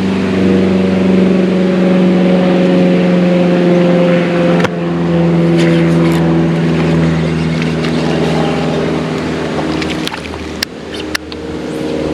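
A steady engine hum whose pitch sags slightly, fading about ten seconds in, with a few sharp clicks near the end.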